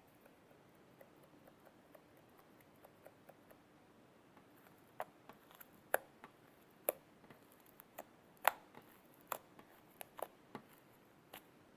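Felt-tip marker tip poking into slime: a run of faint, short, irregular taps, sharper and more frequent in the second half.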